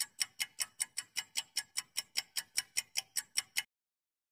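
Countdown timer sound effect: clock-like ticking, about five sharp ticks a second, that stops suddenly near the end.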